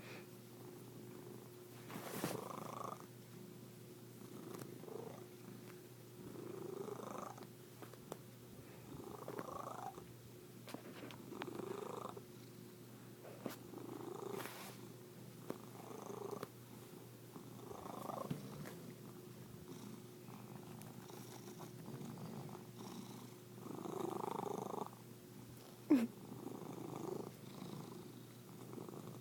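Domestic cat purring in an odd, weird-sounding way, the purr swelling every two to three seconds with each breath and rising in pitch within each swell. There is one short sharp sound near the end.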